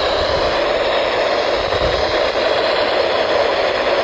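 Steady hiss of static from a NOAA Weather Radio receiver, with no voice.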